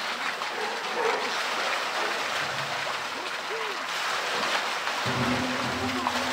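Pool water splashing and churning as a polar bear thrashes with a floating plastic tub. A low steady hum starts about five seconds in.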